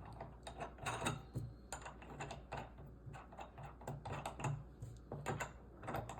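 Light, irregular clicks and knocks of a billet-aluminium barrel vise being handled, several a second.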